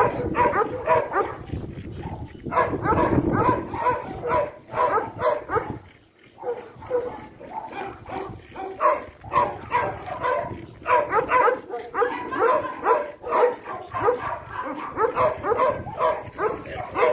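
A pack of dogs whining and yipping in many short, high calls that keep overlapping, with a brief lull about six seconds in.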